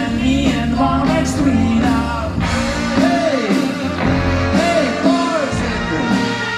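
Live swing band playing, with upright bass, drum kit, hollow-body electric guitar, trumpet and saxophone, and a voice singing with sliding notes over it.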